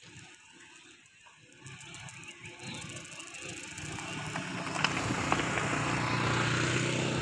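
A motor vehicle's engine running steadily, growing louder over several seconds as it approaches along the road.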